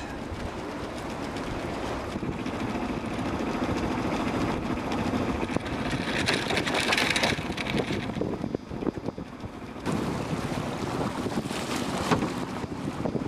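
Wind buffeting the microphone and water rushing along the hull of a sailing yacht under way, a steady noisy wash that swells and eases, with a brief lull about two-thirds of the way through.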